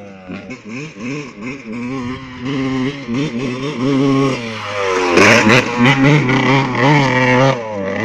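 Suzuki RM 125 two-stroke motocross bike revving up and down over and over as it rides in, getting louder and passing close about five seconds in.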